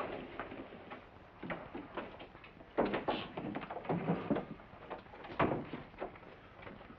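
Footsteps, scuffing and knocks on a wooden floor as a man's limp body is dragged into a back room, with a few louder thumps, then a wooden door being pushed shut.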